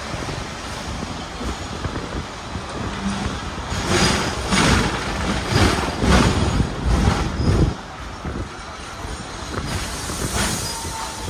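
Hong Kong double-decker electric tram running, heard from the upper deck. For several seconds in the middle it clatters loudly over the track in a run of knocks, then settles back to a quieter rumble.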